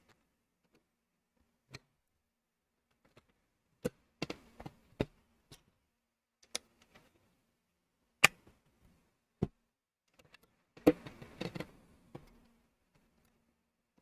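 Lego plastic pieces being handled and pressed together: scattered sharp plastic clicks, the loudest about eight seconds in, then about a second of rattling plastic around eleven seconds in.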